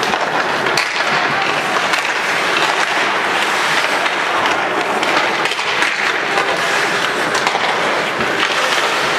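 Ice hockey play: skate blades scraping the ice and sticks clacking on the puck in a steady clatter, with the constant noise of the rink.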